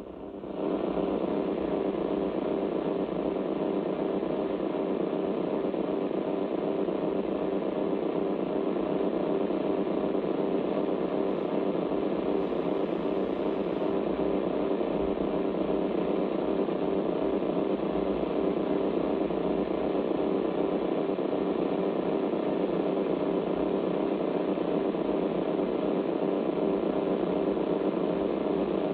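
Shortwave radio receiver tuned to 5625 kHz, playing an unidentified strange signal. A steady, rough buzzing with a fast even pulse comes on about half a second in, replacing quieter band hiss, and holds unchanged.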